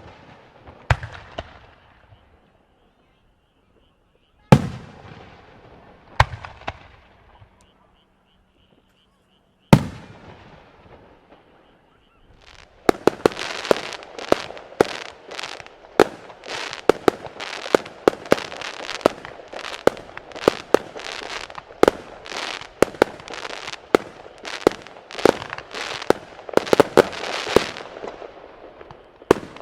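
Aerial fireworks bursting: a few single loud booms a couple of seconds apart, each trailing off, then from about halfway through a rapid, continuous barrage of bangs and crackling.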